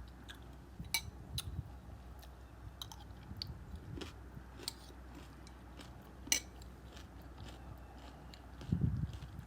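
Close-up chewing of crunchy cereal with banana and dates: soft scattered crunches and mouth clicks, with a sharper crunch about six seconds in.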